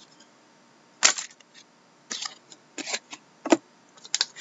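Cardboard trading cards snapping against each other as they are moved one at a time from the front of the pack to the back: about five short, sharp snaps, roughly a second apart.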